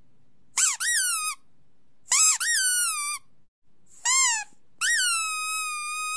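Great Dane puppy whining in a run of short, high cries that rise and fall, ending in a long, steady whine.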